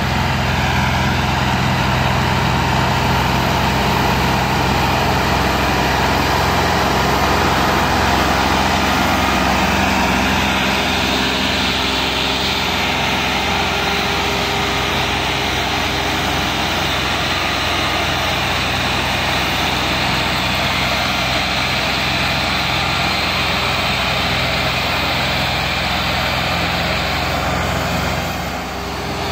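Diesel engines of a Massey Ferguson 385 and an Al-Ghazi tractor running steadily under heavy load as the two tractors, hitched in tandem, pull a trolley piled with sugarcane.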